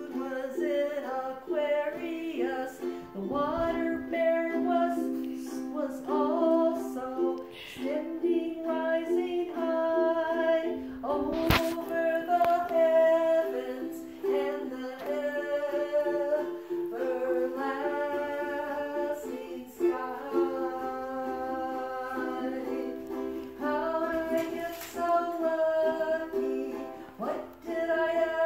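Woman singing a slow song to her own ukulele accompaniment, with one sharp knock about eleven seconds in.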